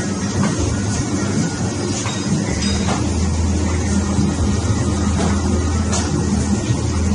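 Prince cold lamination machine running steadily, its rollers drawing laminating film off the roll over printed sheets: a steady low hum with a few light clicks.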